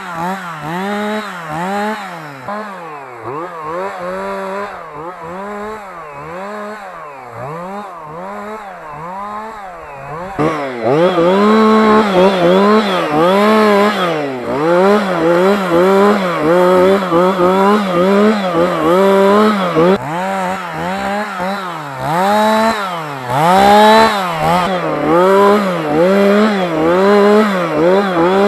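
Jonsered 2045 Turbo two-stroke chainsaw revving up and down over and over in quick surges. It gets louder about ten seconds in.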